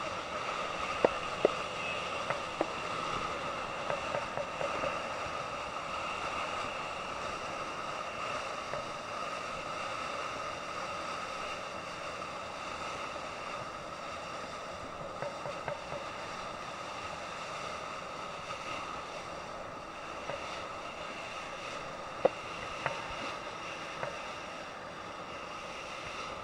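Fishing boat's engine running steadily, with the hiss of water and wind and a few sharp knocks.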